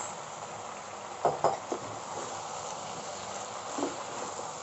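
Chicken keema and boiled macaroni sizzling steadily in a frying pan over a medium flame while a wooden spatula stirs them, with a few brief stirring sounds about a second in and near the end.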